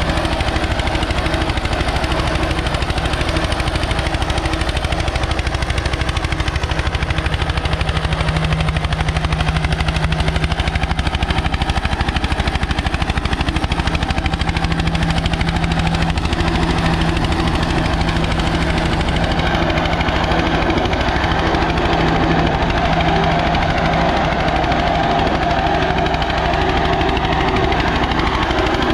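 Eicher 241 NC tractor's single-cylinder air-cooled diesel engine running steadily under load while pulling an eight-tyne cultivator through ploughed soil, with rapid, even exhaust beats.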